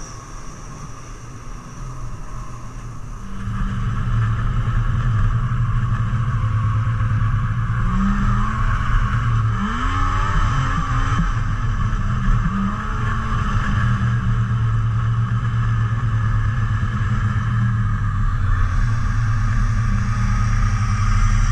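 Snowmobile engine running under way, a steady drone that gets louder about three and a half seconds in as the sled speeds up. Between about eight and thirteen seconds in, the engine pitch dips and rises a few times with the throttle.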